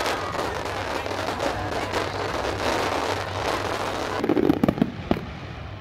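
Fireworks going off in rapid succession: a dense crackle of many pops, with a few heavier bangs about four seconds in, then thinning out near the end.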